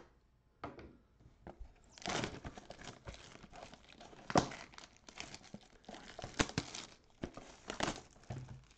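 Plastic shrink wrap being torn and crinkled off a sealed trading card mega box, a run of rustling from about two seconds in with a few sharp snaps.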